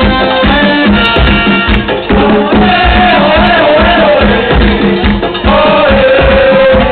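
Live Puerto Rican plena music played loud through a stage PA: hand drums keep a steady beat under a lead voice, with a long held note starting about two-thirds of the way in.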